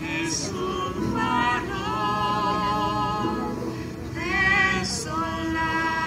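Two women singing a slow song together, with long held notes and some vibrato, over a sustained keyboard accompaniment.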